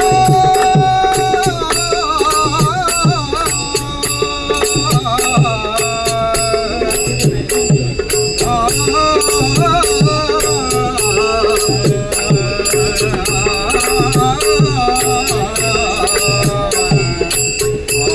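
Devotional bhajan music without lyrics: a wavering melodic line over a steady beat of hand drum and jingling percussion.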